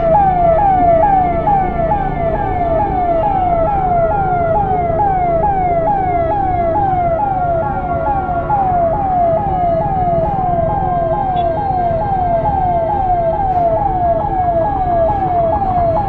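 Ambulance siren running continuously: a quick falling wail that drops in pitch and jumps back up, repeating about twice a second. Traffic rumble underneath.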